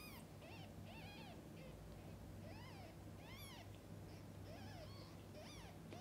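Newborn kittens mewing while their mother washes them: thin, high little squeaks, each rising and falling in pitch, about two a second.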